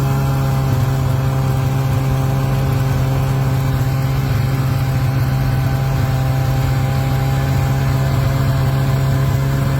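Snowmobile engine running steadily at one unchanging speed.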